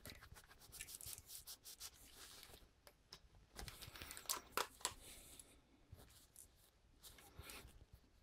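Faint rubbing and rustling of a cloth rag wiping the frame of a stainless Taurus revolver, in a string of short strokes, loudest about four to five seconds in.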